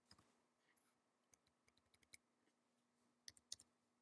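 Faint computer keyboard keystrokes: a handful of short, irregular clicks as numbers are typed in.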